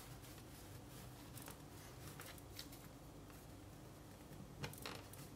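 Faint handling noises: hands rustling the denim of a jeans waistband and a small metal eyelet clicking lightly as it is pushed into a punched hole, with the loudest tap a little before the end, over a low steady room hum.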